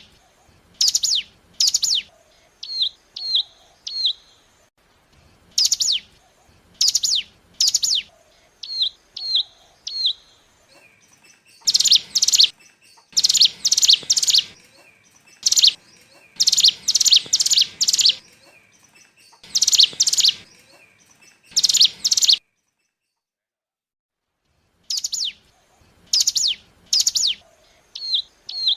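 Lure-call recording of the ciblek gunung, a hill prinia: groups of sharp, high chips that sweep downward, mixed with short lower notes, repeated in quick series and thickest in the middle. The calls stop for a couple of seconds about three-quarters of the way through, then start again.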